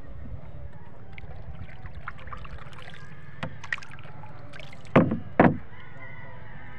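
Wooden paddle working the water beside a small boat, with two loud paddle strokes about half a second apart about five seconds in and lighter knocks before them, over steady low background noise.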